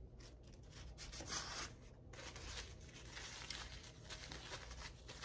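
Paper napkin rustling and rubbing as hands are wiped with it.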